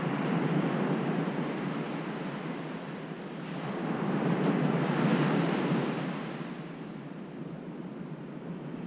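Ocean surf breaking and washing up the beach, swelling to its loudest about halfway through as a wave comes in, with wind on the microphone.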